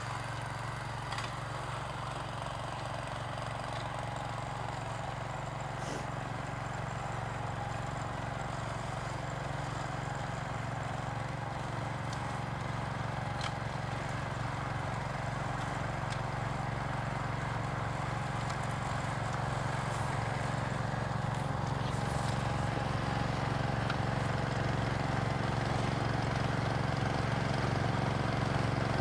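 Gravely 430 tractor running steadily with its snowblower, a constant engine hum that grows slightly louder toward the end.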